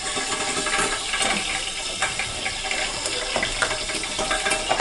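Water splashing and bubbling as washed rice is tipped into a pot of boiling water, with a dense crackle of small splashes.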